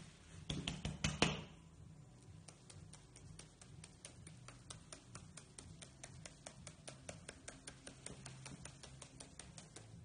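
White-headed caique hopping on a stone window sill, its claws tapping the stone in a quick, even patter of faint taps, about four or five a second, with a few louder taps in the first second and a half.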